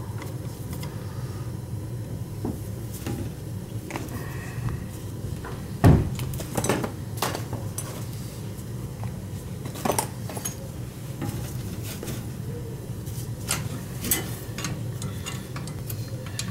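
Scattered metal clicks and knocks of tools and fittings being handled as a manometer hose is taken off a boiler gas valve's pressure tap and the plug put back, the loudest knock about six seconds in. A steady low hum runs underneath.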